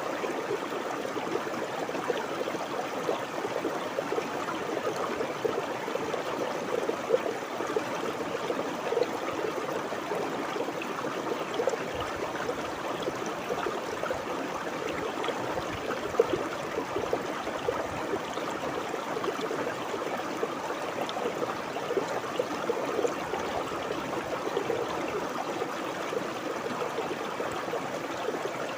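A stream of water flowing and babbling steadily, with small splashes and gurgles.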